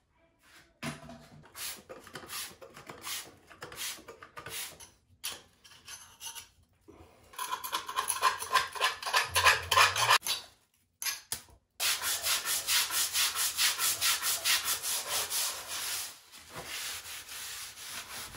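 Hand scraping and scrubbing on a tile floor around a cast iron toilet flange, clearing old wax and silicone sealant: repeated rubbing strokes in several separate stretches that stop abruptly between them, quick and regular in the later stretch.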